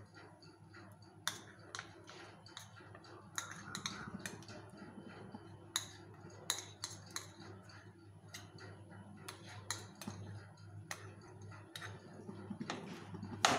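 A steel spoon stirring and scooping chunks of white compound chocolate with condensed milk in an aluminium pan, giving scattered light clinks and scrapes of metal on metal, about a dozen in all.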